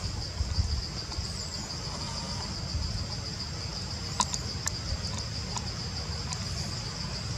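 Insects droning steadily on one high pitch, over a low rumble, with a few faint clicks about four seconds in.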